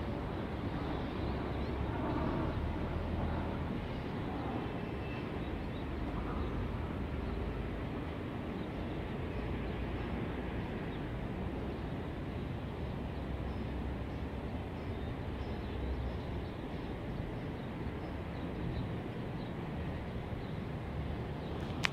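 Steady hum of distant city traffic, a low even rumble heard from high above the streets. A single sharp click at the very end.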